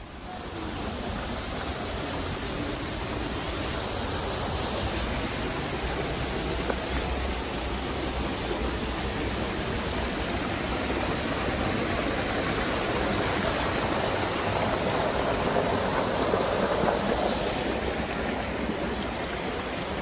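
Rushing water of a stream running over rocks, a steady rush that swells up in the first second and then holds.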